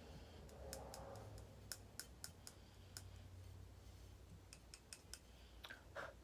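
Faint, irregular clicks and light taps of makeup cases and brushes being handled, in two clusters a few seconds apart.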